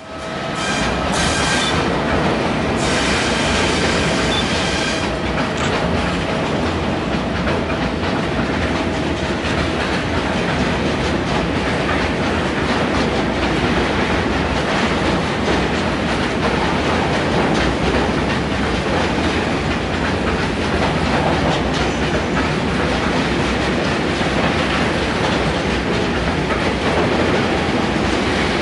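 A train passing close by at a steady, loud level. The sound cuts in suddenly, with a high whine of several steady tones over the first five seconds before the even running noise of the train takes over.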